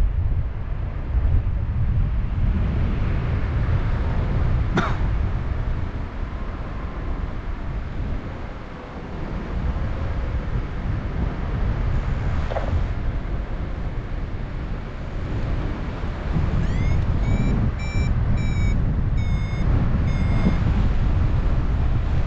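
Wind rushing over the microphone during a paraglider flight, with a sharp click about five seconds in. From about two-thirds of the way through, a variometer beeps in short pitched tones, the first ones rising, the signal it gives when the glider is in lift.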